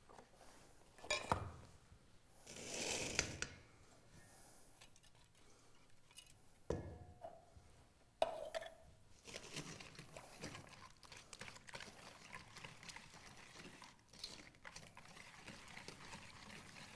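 Quiet kitchen handling: a couple of knocks as things are set down, a brief rustle, and a spatula scraping pumpkin from a can. Over the second half comes a faint, continuous sound of a whisk mixing pumpkin pie filling and eggs in a stainless steel bowl.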